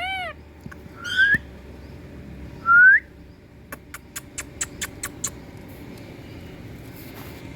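Indian ringneck parakeet whistling: two rising whistled calls, the second a clear upward whistle and the loudest, followed by a quick run of about nine short, sharp clicking chirps.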